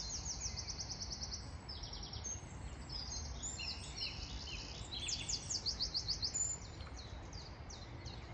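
Several songbirds singing, with rapid repeated notes and trills overlapping, over a steady low background rumble.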